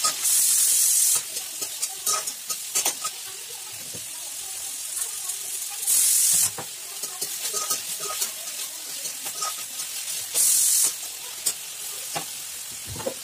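Stirring and frying in an iron kadhai: a metal spatula scrapes and clicks against the pan over a low sizzle. Three short, loud bursts of hiss, about five seconds apart, come near the start, about six seconds in and about ten seconds in.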